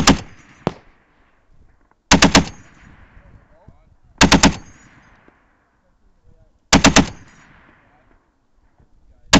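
M2 Browning .50 calibre heavy machine gun firing short bursts of three to five rounds, a burst about every two to two and a half seconds, each followed by an echo dying away.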